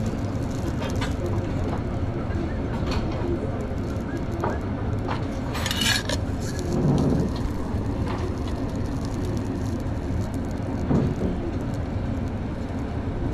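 Food-stall kitchen work over a steady low background rumble: scattered clinks and knocks of utensils and containers, with a brief hiss about six seconds in.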